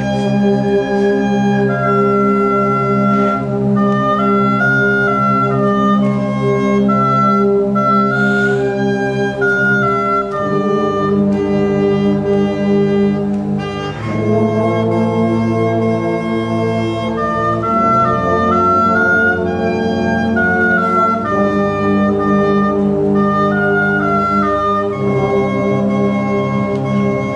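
Concert wind band playing a slow passage: brass and woodwinds hold loud sustained chords over a steady bass while a melody moves stepwise above them, with the harmony shifting a few times.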